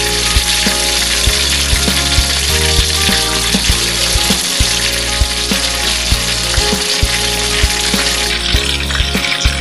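Whole chicken deep-frying in a wok of hot oil: a steady, loud sizzle and crackle of bubbling oil. Background music with a regular beat plays underneath.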